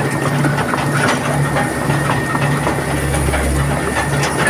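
Tracked excavator travelling, heard from inside its cab: the diesel engine running under load, a low drone pulsing about twice a second, with the steel tracks and cab clattering and rattling throughout.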